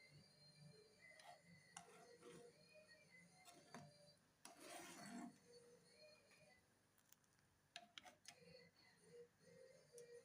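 Near silence, with a few faint light clicks and a brief faint rubbing or scraping sound about halfway through.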